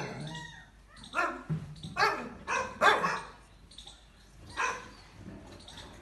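Puppies barking in short, high yaps, about five calls spaced a second or so apart.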